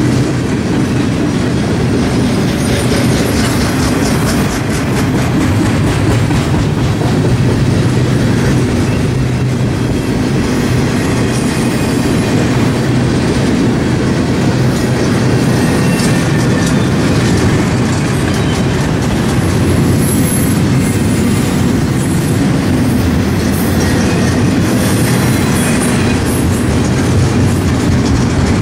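Double-stack intermodal container cars of a freight train rolling past: a steady, loud rumble of steel wheels on the rails.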